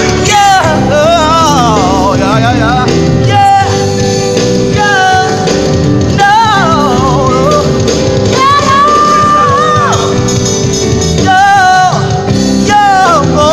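Live gospel band playing loudly, with keyboard, electric guitar and drum kit. A singer's voice runs through wavering, ornamented lines over the band and holds one long note about two-thirds of the way in.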